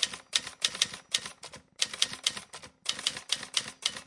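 Typewriter keys clacking in quick runs of sharp clicks, with short pauses between the runs.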